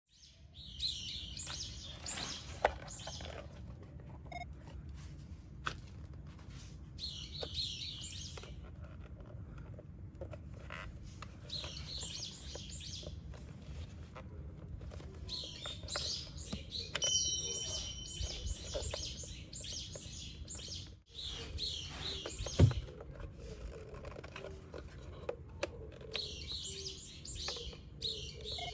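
Small birds chirping in repeated short bursts over a steady low rumble, with scattered clicks and knocks and one sharper, louder knock late on.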